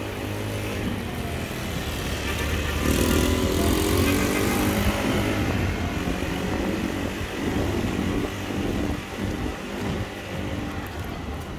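Street traffic: a motor vehicle's engine drones past, loudest about three to five seconds in, with tyres hissing on the rain-wet road.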